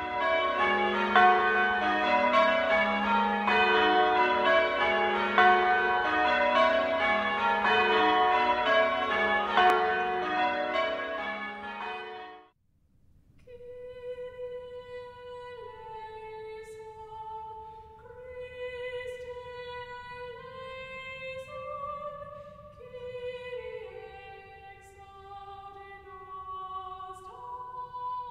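Church bells ringing rapidly, cutting off abruptly about twelve seconds in. Soft, slow instrumental music with long held notes follows.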